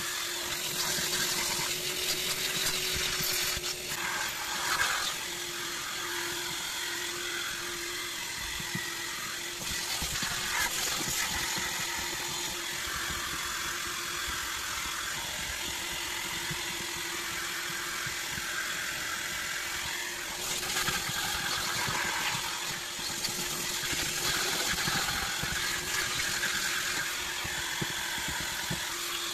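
Vacuum cleaner running steadily through a hose, with a rubber scraper rasping across the van's floor carpet every now and then.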